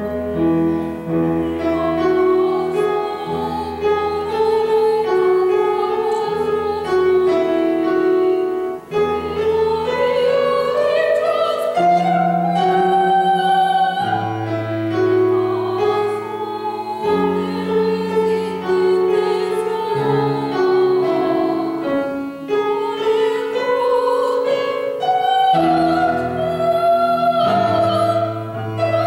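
Soprano singing an operatic aria with wide vibrato, her phrases climbing and falling, over held chords of instrumental accompaniment.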